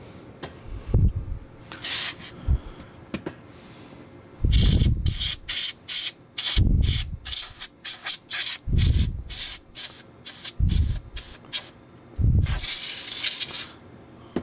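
Can of compressed duster air sprayed through its straw into an opened 3.5-inch floppy drive to blow out dust, in a quick run of short puffs, about two or three a second, then one longer blast near the end. Low rumbles come and go between the puffs.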